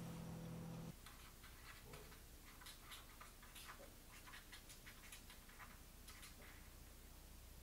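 Faint, irregular scratching and tapping of a pen tip on a paper notepad, several short strokes a second, after a low hum that stops about a second in.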